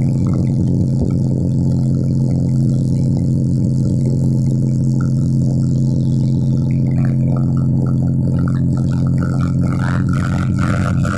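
Horeg sound system played very loud during a sound check, one deep bass tone held steady under a dense low rumble, overloading the recording; a few sharp clicks near the end.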